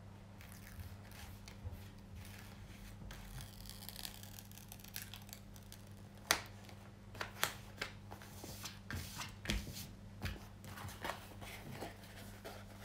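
Crinkling and rustling of a rolled diamond-painting canvas being handled and unrolled, with irregular sharp snaps and clicks, the loudest about six seconds in, over a steady low hum.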